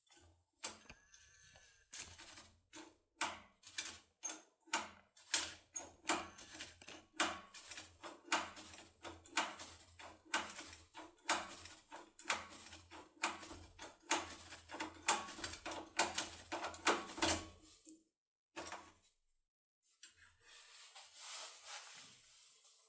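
A lock being worked with a locksmith's opening tool: a long run of sharp metallic clicks, about two a second, that stops after about seventeen seconds. A short scrape follows, then a soft rustle near the end.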